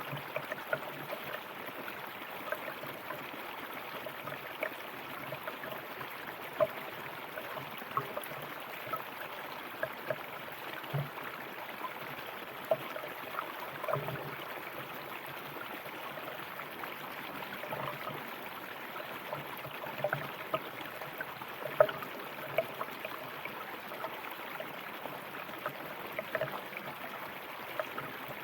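River water running steadily, with frequent small splashes and gurgles over an even rushing hiss.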